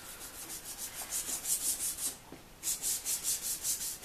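Sanding pad from a Rain-X headlight restoration kit rubbed by hand, back and forth over the wet plastic lens of a 2003 Subaru Forester headlight. It makes rapid, even scrubbing strokes, which pause briefly about two seconds in and then carry on. The lens is being wet-sanded with lubricant to remove a remaining scratched spot.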